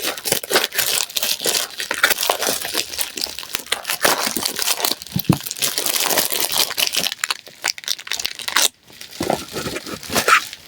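Plastic packaging being torn open and crumpled by hand, a dense run of crinkling, crackling and tearing with a short pause near the end.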